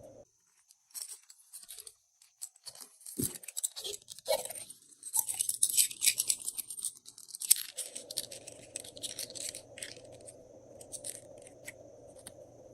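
Glossy slime being mixed, with a dense run of small sticky clicks and crackles that is thickest in the middle. A faint steady high whine runs under it throughout.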